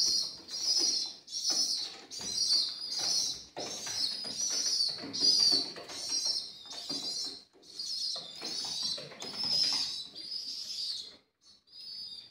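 Domestic pigeons calling: a run of short, high, squeaky calls about every half second, with lower cooing mixed in, thinning out near the end.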